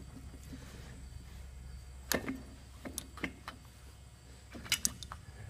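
Scattered light clicks and taps of metal parts being handled and fitted by hand around a Pratt & Whitney R-985 radial engine's cylinder during reassembly, a few close together near the end, over a low steady hum.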